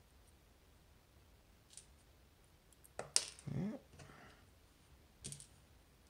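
Faint metallic clicks of steel tweezers working in a brass Assa Twin 5700 lock plug as its side pins are pulled out. The sharpest click comes about three seconds in, followed by a brief low glide, and another click comes near the end.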